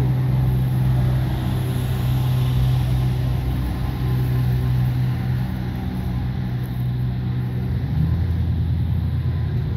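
Road traffic: a motor vehicle's engine running with a steady low drone, its pitch dropping a little about eight seconds in.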